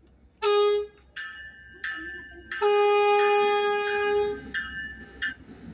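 Stadler GTW diesel light-rail train sounding its horn on approach: a short blast about half a second in, a couple of quieter tones, then a long blast of nearly two seconds, ending with two short quieter toots.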